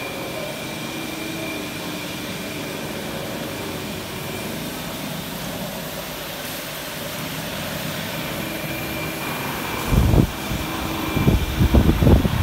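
Straight knife grinder running with a steady mechanical hum and a faint high whine that fades out and comes back. About ten seconds in, low gusty buffeting on the microphone starts and comes louder than the machine.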